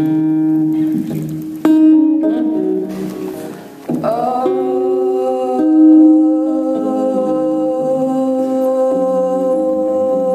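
Electric guitar playing slow plucked notes that ring on. From about four seconds in, one long note is held with a steady sustain.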